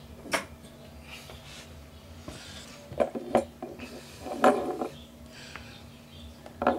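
Small die-cast metal model airliners being picked up and set down on a wooden desk: a few light clicks and knocks, with a busier patch of handling about halfway through.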